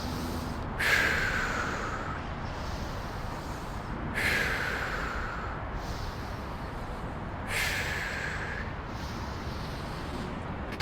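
A man taking slow, deliberate deep breaths close to the microphone. There are three breaths about three and a half seconds apart, each starting sharply and fading over a second or so.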